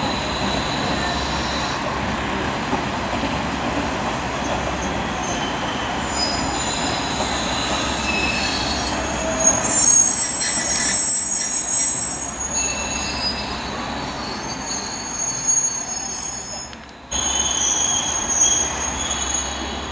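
Train wheels squealing in several high, steady tones over a low rumble of rolling stock, loudest about ten to twelve seconds in. Near the end the sound drops out briefly and comes back with the squeal still going.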